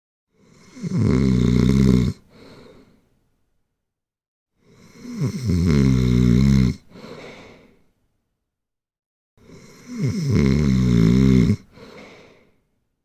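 Snoring: three loud snores on the in-breath, each about two seconds long and about four and a half seconds apart. Each is followed by a short, softer out-breath.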